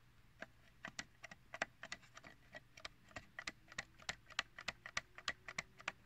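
Quick, irregular plastic clicks, about four a second, as a fingertip presses and taps at the spring-loaded charging pins and contact slot of a Zebra TC57 docking cradle.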